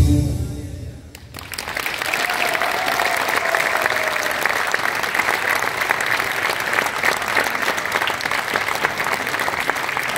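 The last of the music dies away, then an audience applauds, the clapping starting about a second and a half in and going on steadily.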